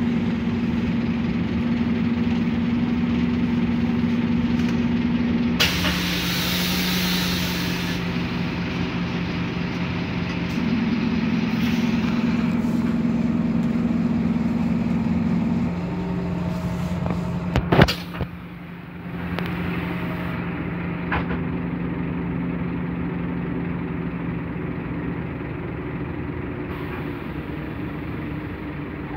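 Scania DC9 five-cylinder diesel of a Scania K270UB city bus heard from inside the passenger cabin, running with a steady hum whose pitch steps a few times. About six seconds in a hiss of air lasts around two seconds, and a sharp clunk comes a little past halfway.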